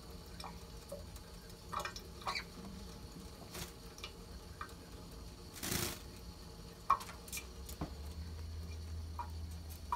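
Thin stream of water from a kitchen faucet dripping and splashing into a stainless steel sink as a pet parrot bathes under it, with scattered drips and a brief louder rush of noise a little before the middle.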